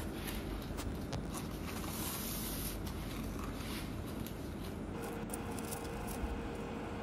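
Soft rustling and tearing of corn husks as an ear of corn is husked by hand, the leaves pulled down and stripped off the cob.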